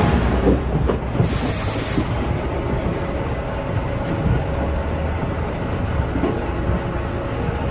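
Livestock truck running close by: a steady low mechanical rumble with a few faint knocks.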